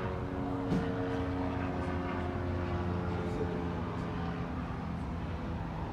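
A steady engine drone: a low hum with several steady tones that shift slightly in pitch, with one brief sharper sound under a second in.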